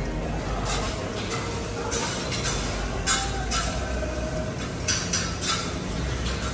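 Cooking-station clatter: a metal spatula scraping and clinking against a wok and plates in short irregular strokes, over a steady low hum.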